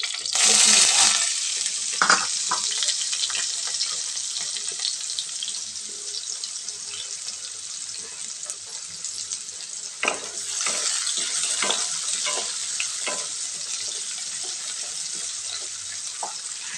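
Chopped onion dropped into hot oil and cumin seeds in a kadhai: a sudden loud burst of sizzling about half a second in that settles into a steady frying hiss. A spatula knocks and scrapes against the pan while stirring, about two seconds in and again from about ten seconds.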